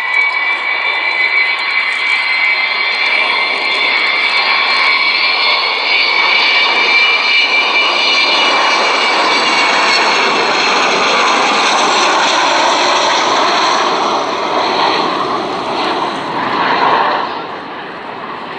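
Avro Vulcan XH558's four Rolls-Royce Olympus turbojets running loud on a low pass: a steady roar with a high whine over it. The whine fades about halfway through, and the roar eases off near the end.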